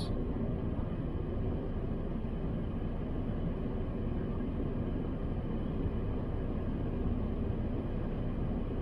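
Steady low rumble and hiss heard inside a car's cabin, even throughout, with no clear motor whine standing out.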